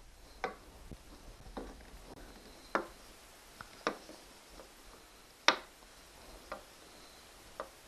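Small clicks and taps of license plate lamp parts being handled and fitted, about one a second, the sharpest one about five and a half seconds in.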